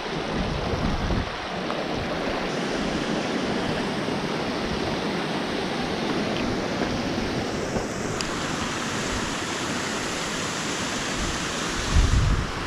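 Steady rushing water, with wind rumbling on the microphone in the first second and again near the end.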